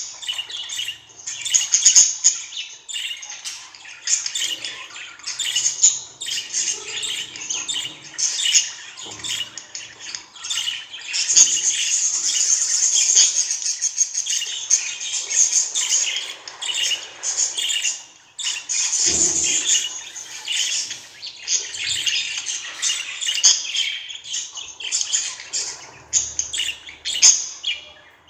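Pet budgerigars chattering: a nearly unbroken stream of rapid, high chirps and squawks, with a brief lull about two-thirds of the way through.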